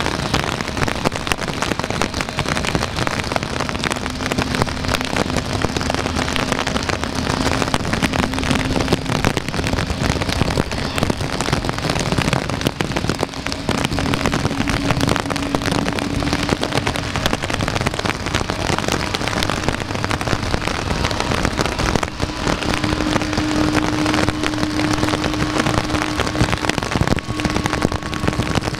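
Heavy rain falling steadily, a dense crackle of drops. Underneath runs a faint steady low hum that steps up slightly in pitch two or three times.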